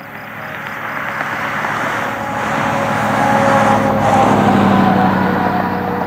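A road vehicle passing close by, its tyre and engine noise swelling to a peak about four seconds in, then fading away.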